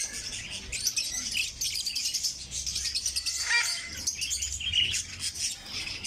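A crowd of caged lovebirds and budgerigars chirping and twittering at once, a dense, constant high-pitched chatter, with one louder call about three and a half seconds in.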